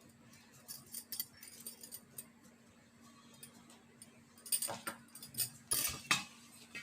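Light metallic clinks and rattles from steel idli plates being handled, thickest in a cluster about four and a half to six seconds in, over a faint steady hum.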